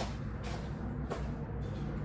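A few soft footsteps of a person walking away across a room, over a low steady hum.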